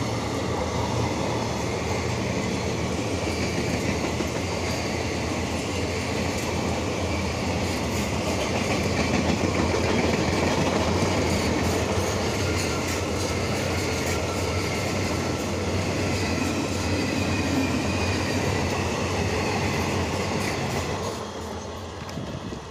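Passenger coaches of an Indian Railways express train rolling past close by: a steady rumble of wheels on the rails with a clattering rhythm and faint high whining tones. It drops off sharply near the end as the last coach goes by.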